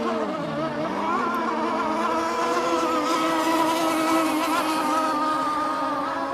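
Gasoline boat engine running at a steady pitch, a drone of several tones with a slight waver. Its pitch dips and recovers during the first second.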